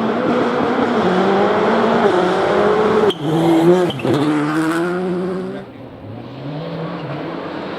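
Rally car engine running hard, its pitch rising and falling with throttle and gear changes; the sound breaks sharply about three seconds in, and from near six seconds the engine is quieter and duller, its pitch climbing again.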